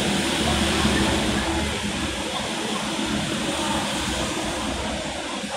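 Steady hiss of rain falling on a wet paved street, with a low hum that fades out about two seconds in.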